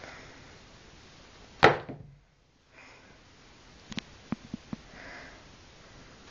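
Handling noise from a handheld camera: one loud knock or rub about a second and a half in, then a quick run of small sharp clicks about four seconds in.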